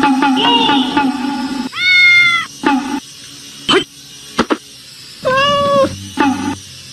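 Domestic cat meowing twice, about three seconds apart.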